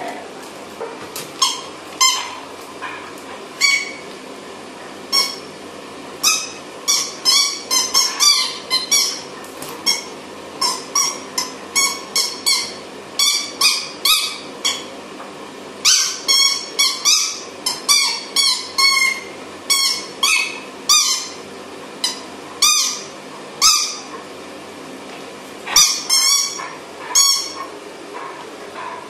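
A dog chewing a squeaky toy: short, high-pitched squeaks over and over, some alone and some in quick runs of several, with brief pauses between.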